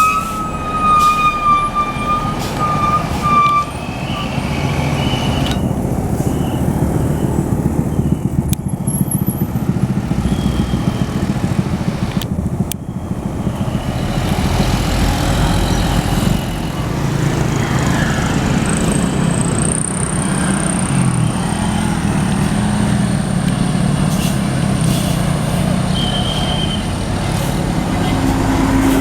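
Bus engine and road traffic running steadily; a bus's multi-tone telolet horn plays a wavering tone during the first three or four seconds.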